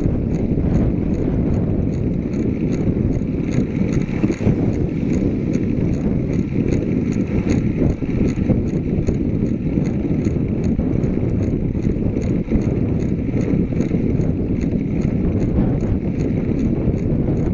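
Wind and road rumble on the microphone of a handlebar-mounted camera while a bicycle is ridden, with a light regular ticking about twice a second.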